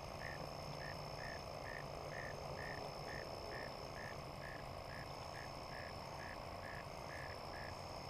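A frog calling over and over, a short note repeated about twice a second at a steady pace, with a steady high-pitched whine behind it.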